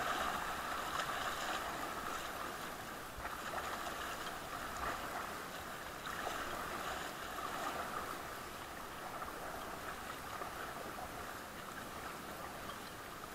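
Fast river water rushing around an inflatable raft, with paddle blades splashing into it in strokes every second or two; the rush eases toward the end.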